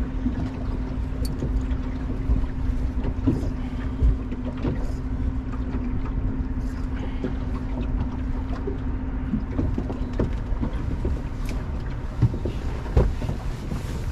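A fishing boat's motor humming steadily over water and wind noise on the hull; the hum stops about ten seconds in. A few knocks come through, one about four seconds in and two near the end.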